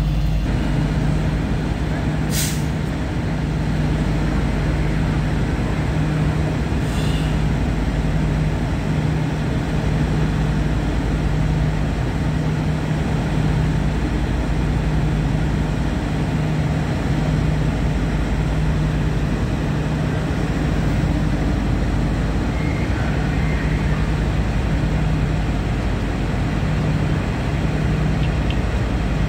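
Fire apparatus engines and pumps running with a steady, pitched drone. Two sharp pops cut through about 2 and 7 seconds in, from ammunition cooking off in the fire.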